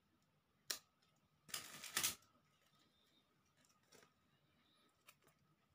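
Hands handling small craft pieces: a sharp click, then a brief rustling scrape about a second later, and a few faint clicks near the end.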